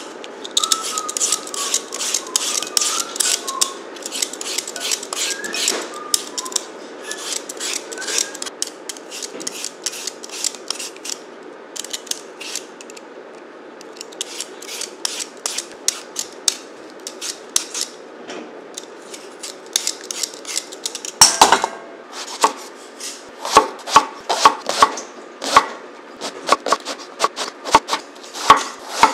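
A metal vegetable peeler scraping rapidly over raw potatoes, a long run of quick, rasping strokes. About 21 seconds in this gives way to a kitchen knife slicing eggplant on a wooden cutting board, crisp chops about two a second.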